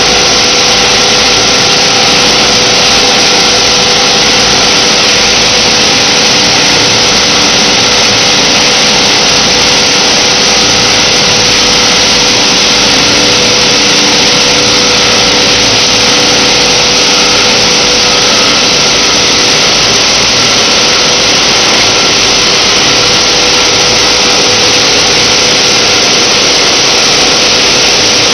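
PET bottle recycling and washing line machinery running: a loud, steady mechanical din of motors and conveyors, with a few steady humming tones over an even hiss. Wet plastic flakes are tumbling from a screw conveyor into a sink-float washing tank.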